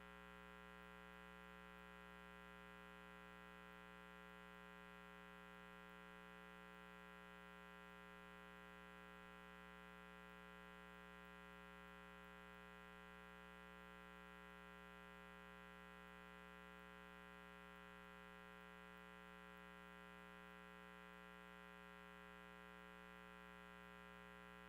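Near silence with a faint steady hum of many tones that does not change.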